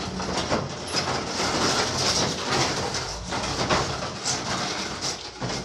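Table being dragged and shifted, a continuous rough scraping with uneven knocks.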